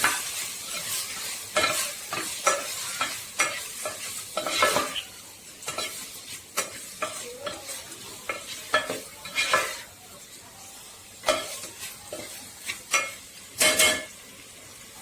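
Marinated chicken pieces sizzling in coconut oil and ghee in a pan while a spatula stirs and scrapes them, with irregular scraping strokes over a steady sizzle.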